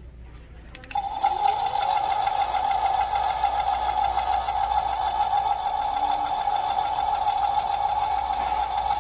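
Animated skeleton sewing-machine Halloween decoration switched on: a steady, loud whirring buzz imitating a running sewing machine starts about a second in and carries on without a break.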